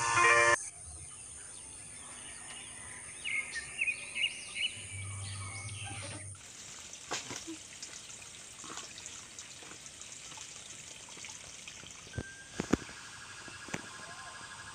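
Birds calling several times, then a steady hiss of trickling water broken by a few sharp clicks.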